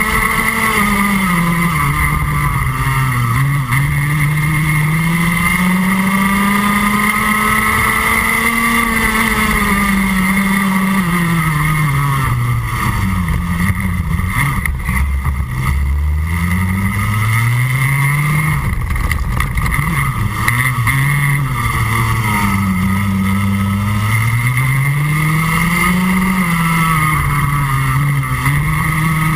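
Junior Rotax 125cc two-stroke kart engine at racing speed, heard on board: its pitch climbs on each straight and drops as it slows for corners, over and over, with the deepest and longest drop about halfway through.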